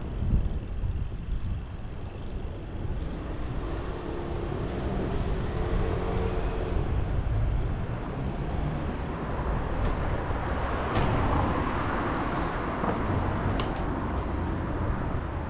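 Low rumble of wind and road buffeting on a bike-mounted action camera riding along a street. A car's tyre and engine noise swells as it drives past in the second half, with a few light clicks.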